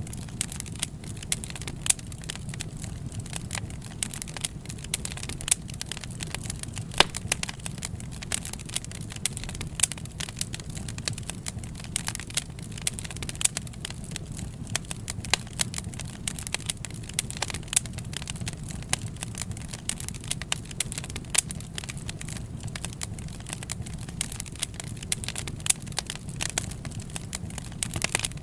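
Wood fire crackling, with frequent irregular sharp pops and snaps over a steady low rush of the burning.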